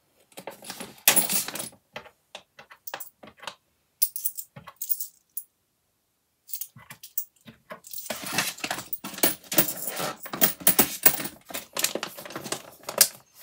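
£1 coins clinking as they are gathered up by hand and put into a plastic zip pouch, with handling of the pouch. Scattered clicks come first, then a silent gap midway, then a dense run of clinks and rattles over the last few seconds.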